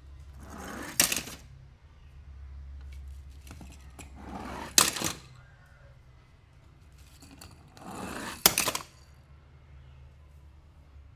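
Die-cast toy cars being handled: three times, a short rising scrape ends in a sharp clack, evenly spaced, over a low steady hum.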